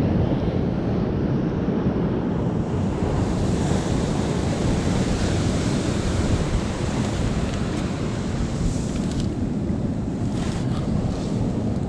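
Ocean surf washing and breaking against the shore, a steady heavy rush, with wind buffeting the microphone.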